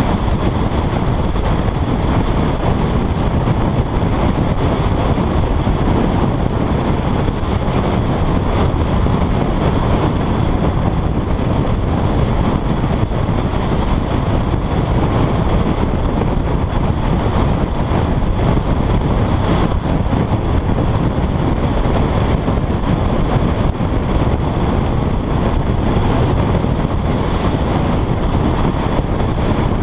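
Steady wind rush buffeting the microphone, mixed with engine and road noise, from a Can-Am Spyder RS-S three-wheeler cruising at highway speed.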